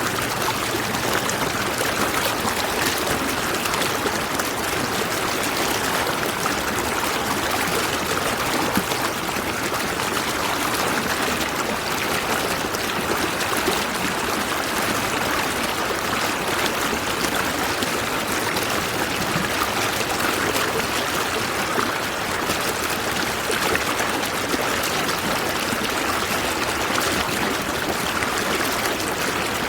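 A stream of water flowing steadily over rocks, a continuous rushing and babbling.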